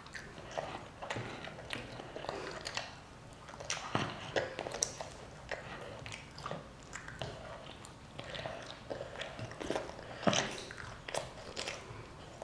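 A young child biting and chewing broccoli florets: quiet, irregular wet crunches and mouth clicks, a few louder bites about four and ten seconds in.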